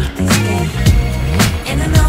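Background music: a funk-style song with a steady beat of about two strikes a second over a bass line.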